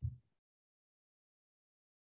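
Near silence, opened by one brief low thump.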